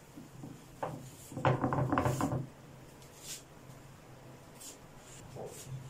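Hands pressing and patting a stuffed paratha flat on a tawa, with a few soft knocks and rubbing sounds and a louder stretch of about a second roughly a second and a half in, over a faint steady low hum.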